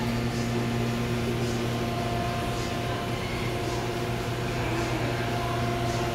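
Steady electrical hum and fan noise from the shop's refrigeration and kitchen equipment, a constant low buzz with a few fixed higher tones above it.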